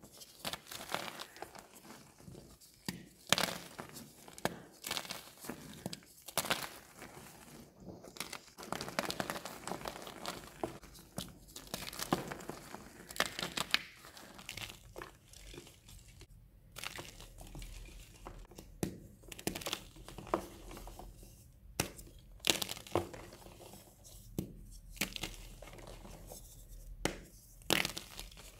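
Gym chalk being crushed and crumbled between bare hands: soft powdery crunches and irregular crackles, with firmer crunches as chunks of pressed chalk block are squeezed in the palms near the end.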